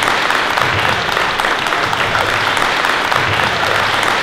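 Audience applauding, a dense, steady patter of many hands clapping at once.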